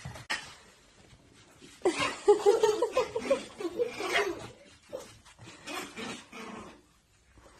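Pomeranian puppies yipping and whimpering in play: a quick run of short, high cries starting about two seconds in and lasting about two seconds, then a few fainter ones.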